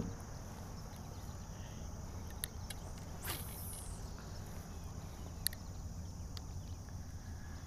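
Steady high-pitched insect chorus over low outdoor rumble, with a brief whoosh a little past three seconds in as a spinning rod is cast, and a few faint clicks.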